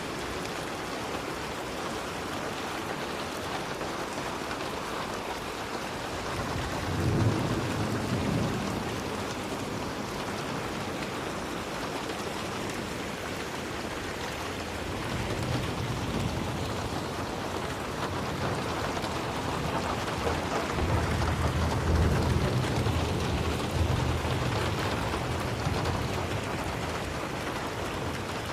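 Steady rain hiss, with rolls of thunder: a low rumble about seven seconds in, and a longer one swelling from about halfway through until near the end.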